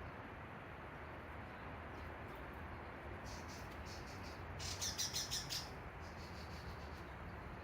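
Sparrow chirping: a few faint high chirps, then a louder rapid run of about eight chirps around the middle, over a steady low background hiss.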